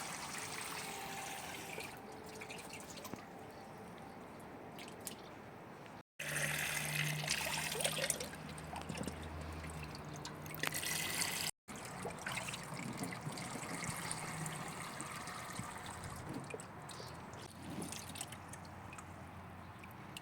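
Pool water trickling and dripping, with small splashes, over a few short clips; a low steady hum sits under the middle clip.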